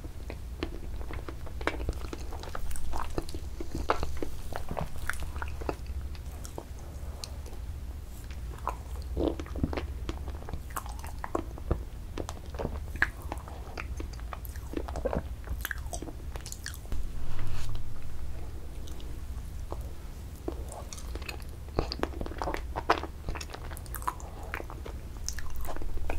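Close-miked mouth sounds of eating soft ice cream and sherbet off a plastic spoon: scattered wet smacks and lip clicks, with now and then a light scrape of the spoon in the cup.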